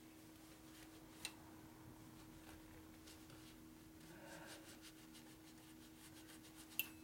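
Near silence with a faint steady hum: a shop rag rubbing softly over a metal cover, and two light clicks, the sharper one near the end with a brief ring.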